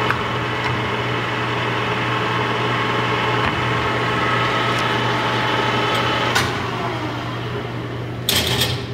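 Clausing Colchester 15-inch engine lathe running under power with its feed engaged: a steady gear whir and hum from the headstock and gearbox. A sharp click comes about six and a half seconds in, and a short, bright, hissing clatter near the end.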